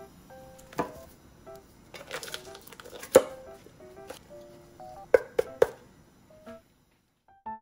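Light background music with plucked melody notes, over the crinkling of a vacuum-sealed plastic bag of frozen duck gizzards and sharp knocks as the bag and a glass baking dish are handled on a plastic cutting board. The loudest knock comes about three seconds in, and three quick knocks follow just after five seconds.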